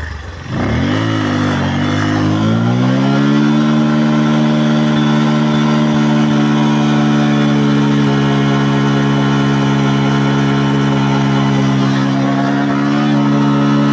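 Small single-cylinder motorcycle engine revving up over the first few seconds, then held at high, steady revs while the rear tyre spins in place on mud and gravel: a burnout that leaves the tyre hot.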